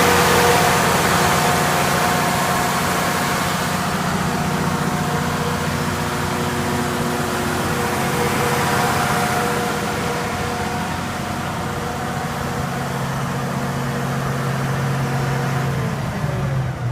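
Cummins diesel engine of a 105 kW generator set running at a steady speed, a constant hum with several fixed tones. Near the end the pitch begins to fall.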